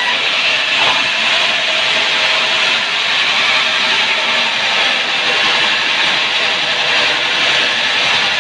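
Sawmill saw cutting through a sengon log: a loud, steady cutting noise with no break.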